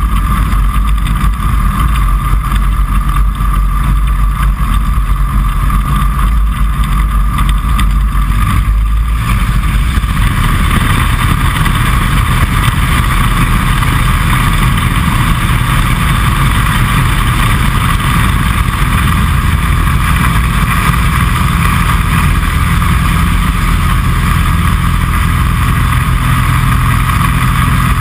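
Kitfox Series 5 light aircraft's engine and propeller running steadily, heard from inside the cockpit. About nine seconds in the engine note grows louder and fuller, and it holds there.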